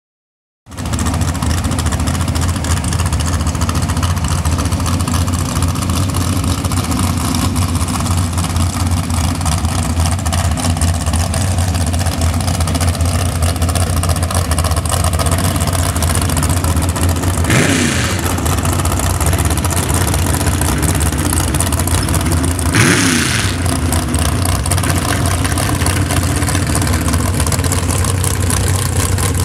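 A dirt drag race truck's exposed engine idling loudly and steadily with a deep rumble. It cuts in abruptly just after the start and is blipped twice in short revs about two-thirds of the way through.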